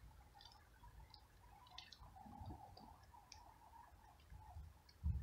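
Faint scattered clicks and ticks of a cat licking and chewing flying ants off wet paving, with a low thump near the end.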